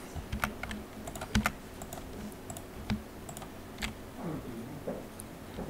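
Sparse, irregular clicks of a computer keyboard and mouse being used, about a dozen separate clicks.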